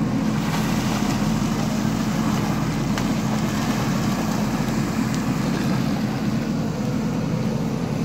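JCB 3DX backhoe loader's diesel engine running steadily while the backhoe arm digs and lifts mud.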